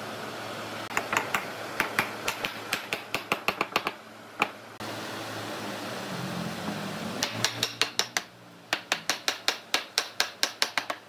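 Rapid hammer taps on wood, seating a tenon into its mortise in a wooden chair frame. There are two runs of sharp taps, the first speeding up and the second at about five a second, over a steady low hum.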